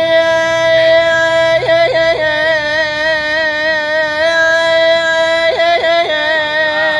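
A young man singing in Iraqi style, holding one long high note, broken twice by quick ornamental trills where the pitch flicks down and back, about a second and a half in and again near the end.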